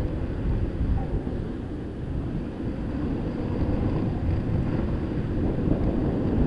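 Skateboard wheels rolling over a paved stone plaza: a steady low rumble with no sharp knocks.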